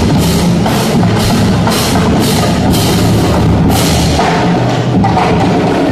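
Marching drumline playing bass drums, snare drums and tenor drums in a steady beat, with sharp crashes about twice a second that stop about two-thirds of the way through.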